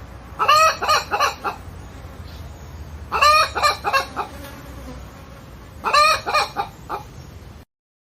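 Chicken calling in three bursts about two and a half seconds apart, each burst a run of short pitched notes over a steady low hum. The sound cuts off suddenly near the end.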